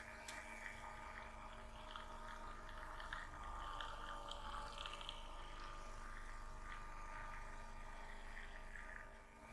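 Hands rubbing and kneading skin during a massage: soft rustling with a few light ticks, over a steady electrical hum, and a sharp click right at the start.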